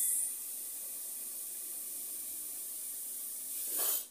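A steady, even hiss, louder for the first moment, with a brief swell just before it cuts off abruptly.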